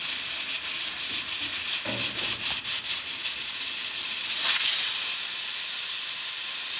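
Aluminium stovetop pressure cooker whistling: steam hissing out under its weight valve, fluttering, and loudest about four and a half seconds in. Each such whistle marks a pressure release while the mutton cooks, counted towards about ten to twelve.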